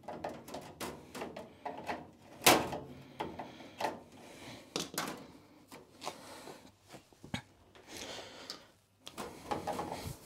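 Irregular clicks, taps and scraping of a hand tool working the small hex standoff nuts off a VGA port on a metal equipment casing, with one sharp knock about two and a half seconds in.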